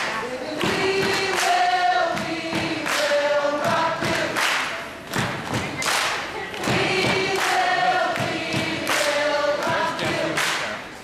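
A choir of young voices singing together in harmony over a steady beat of thuds.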